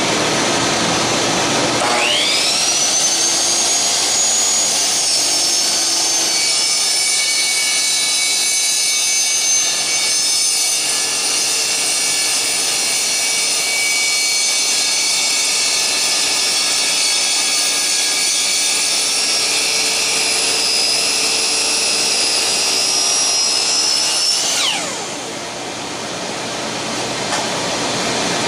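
Miter saw with an 82-tooth carbide blade spinning up with a rising whine about two seconds in, running steadily for over twenty seconds through a cut in stabilized bird's eye maple, then winding down with a falling whine near the end. A steady rushing noise runs under it throughout.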